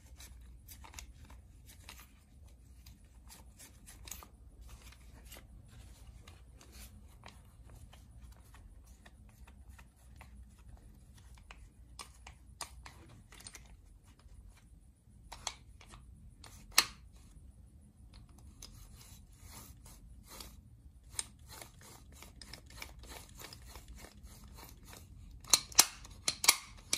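Small metal clicks and light scraping as starter motor parts are handled and fitted during an overhaul. One sharper click comes midway, and a quick run of louder clicks near the end.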